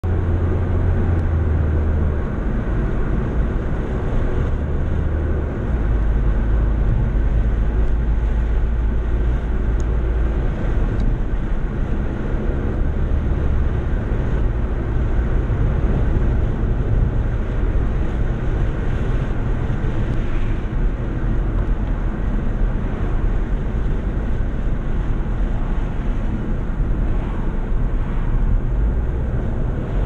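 Steady road and engine noise of a car cruising, heard from inside the cabin, with a deep low rumble underneath.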